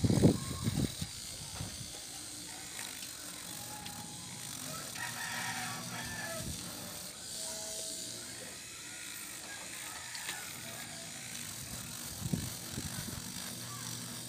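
Electric nail drill with a sanding band running against a natural fingernail, buffing its surface to prepare it for a soft gel extension. The sound is steady and mechanical throughout.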